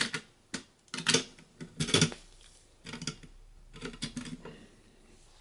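CPU socket retention lever and metal load plate being unlatched and lifted: a string of light metallic clicks and clatters, most in the first two seconds, thinning out after about four seconds.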